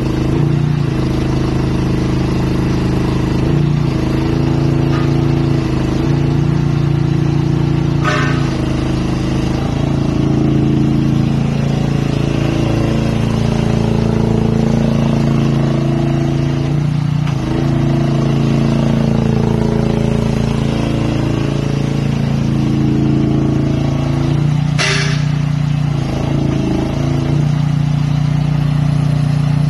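Mini crawler excavator's engine running steadily, its note sagging and recovering again and again as the hydraulics load it while the boom, arm and tracks move. Two brief sharp high squeaks or clanks about eight seconds in and near the end.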